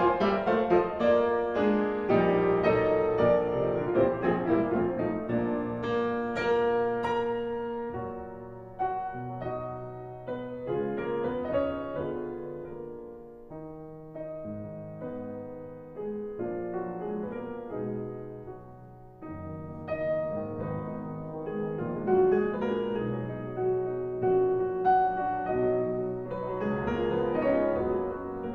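Background piano music: a flowing solo piece that thins out and grows quieter through the middle, then fills out again about two-thirds of the way through.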